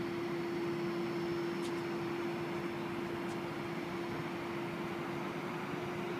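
Steady mechanical hum: one constant droning tone over an even wash of noise, with two faint short ticks early in the sound.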